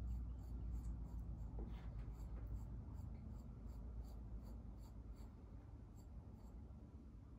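A kitchen utensil scratching and rubbing against soft clay, scoring the outside seam of a clay slab cup.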